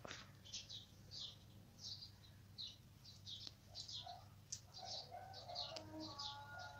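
Faint chirping of small birds in the background: short high chirps repeated irregularly, about two a second, with some lower notes joining about five seconds in.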